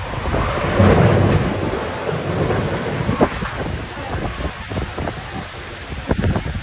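Storm wind gusting hard against the phone's microphone, with rain; the gusts are loudest about a second in.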